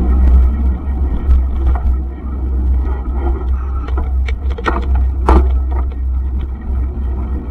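Steady low rumble of wind and riding vibration on the microphone of a camera carried on a mountain bike riding in a pack, with scattered clicks and rattles from the bikes, the sharpest about five seconds in.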